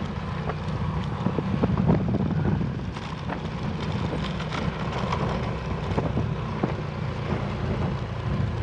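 Motorcycle engine running steadily under way, with wind noise on the microphone. Occasional short knocks and rattles come from riding over the rough road surface.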